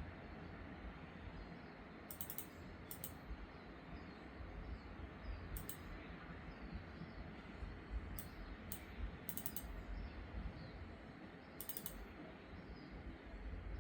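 Logitech G Pro X Superlight 2 Dex wireless gaming mouse buttons clicking: short, sharp clicks, often in quick pairs, every second or two over a low background rumble.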